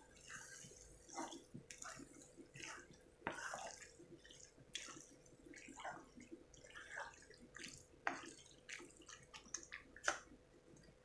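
Wooden spatula stirring macaroni through thick white sauce in a coated frying pan: faint, irregular wet squelches and scrapes.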